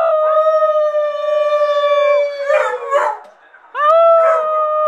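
A beagle howling: one long, steady howl of about two seconds that falls away at its end, a few rougher yelps about three seconds in, and then a second long howl after a short pause.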